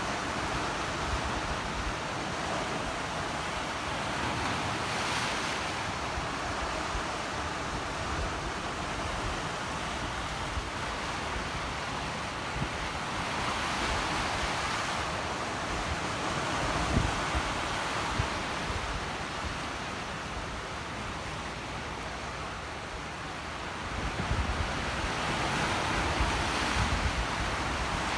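Sea waves surging in and washing back, swelling every several seconds, with wind buffeting the microphone.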